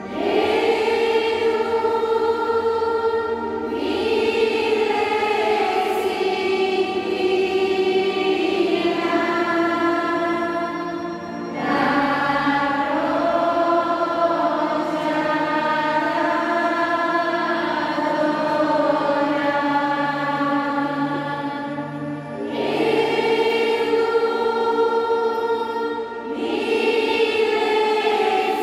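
Voices singing a slow hymn or chant, holding long notes in several phrases with short breaks between them.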